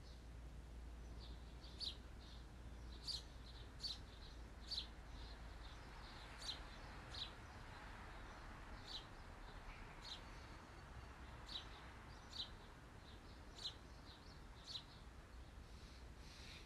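A bird chirping faintly: short high chirps at uneven intervals of about a second, over a low steady hum.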